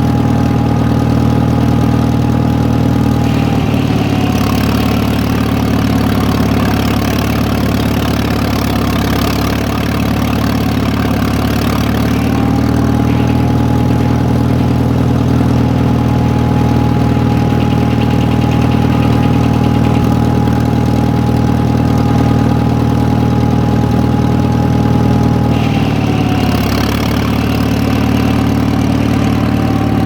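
Massey-Harris 25 tractor's four-cylinder engine running a belt-driven sawmill, with a steady tone from the saw. The pitch drops about four seconds in and again near the end as the saw takes the load of a cut, with a rise in cutting hiss. It comes back up about twelve seconds in.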